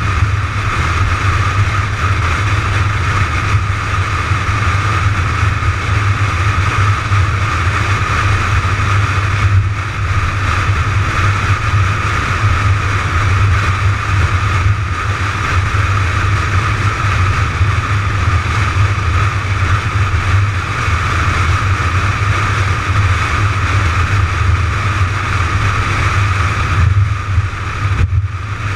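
Steady drone of a McLaren 570GT's twin-turbo V8 and tyres while cruising at an even highway speed, with a strong constant low hum and no revving.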